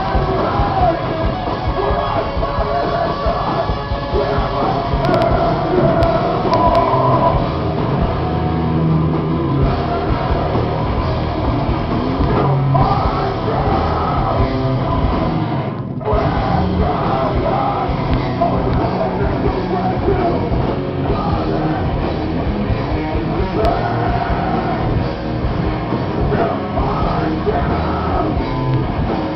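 Rock band playing live on electric guitar and drum kit, a loud, heavy sound that breaks off for a moment about sixteen seconds in.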